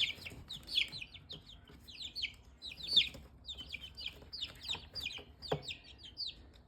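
Young chicks peeping, a rapid run of short, high, downward-sliding peeps, several a second and overlapping from more than one bird: the distress peeping of frightened chicks newly put in a cage.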